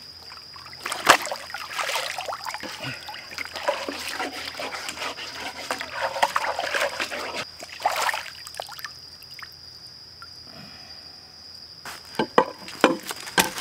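Stream water sloshing and splashing as a cutting board is rinsed by hand at the water's edge. The water noise dies down after about nine seconds, and a few sharp knocks follow near the end.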